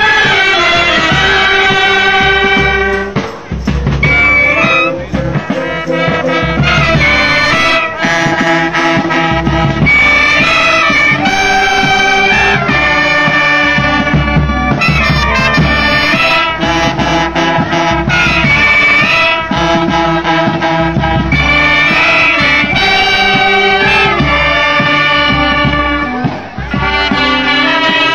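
Uniformed brass and woodwind band playing a tune, with trumpets and clarinets carrying held notes; the music drops briefly between phrases about three seconds in and again near the end.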